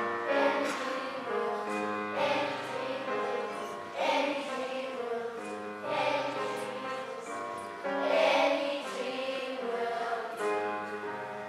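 Children's school choir singing together, holding notes that change about every two seconds.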